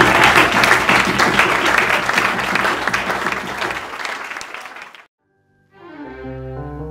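Audience applause, fading away over about four seconds. After a brief silence, music with piano and plucked strings begins.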